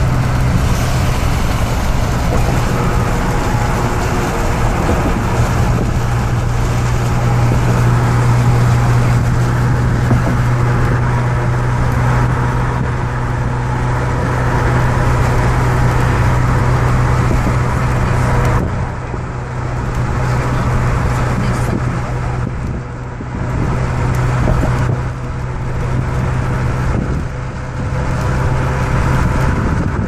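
Steady road noise from inside a moving car: tyre and engine drone with a strong low hum. The higher hiss drops away about two-thirds of the way through.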